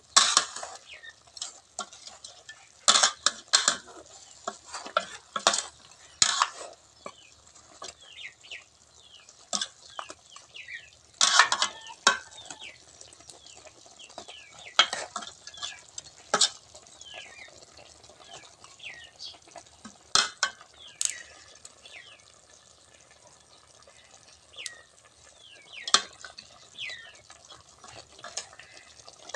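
Metal ladle stirring a steel pot of pork and eggs braising in caramelized sauce, clinking and scraping against the pot in irregular knocks, with the sauce simmering.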